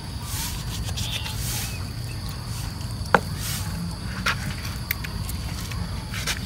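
Knife cutting meat off a pork leg on a wooden chopping board: quiet cutting and scraping with scattered light taps, and one sharp knock of the blade on the board or bone about three seconds in, over a steady low rumble.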